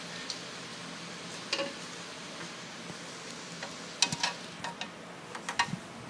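A few sharp clicks and knocks of hands working at a walk-behind trencher's front tire, loudest in a quick cluster about four seconds in, over a steady low hum.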